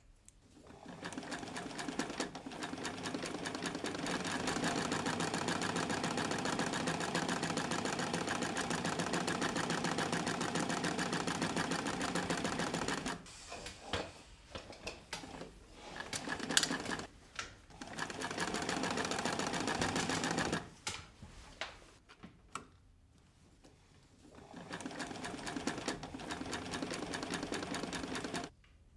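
Electric sewing machine stitching at speed: it picks up over the first second or two, runs steadily for about ten seconds and stops, then runs in short starts with pauses, and runs again near the end.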